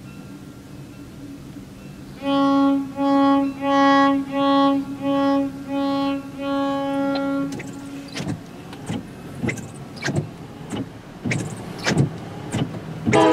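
A horn sounds seven short toots on one steady pitch, the last held a little longer. Then windshield wipers squeak and thump across wet glass about every half second, and a multi-note horn starts up right at the end.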